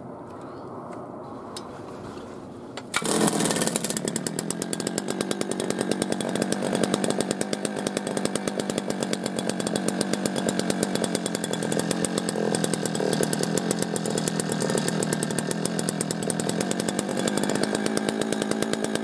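Eskimo Shark 71 cc two-stroke gas ice auger engine, cold-started after months in storage on freshly mixed fuel: about three seconds in it catches on the first pull and then runs steadily with a fast, buzzing beat.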